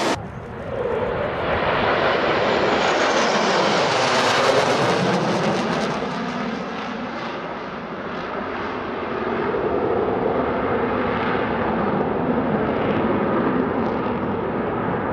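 Fighter jet engines: a steady rushing roar of jets flying past, swelling over the first few seconds, easing off about halfway and building again.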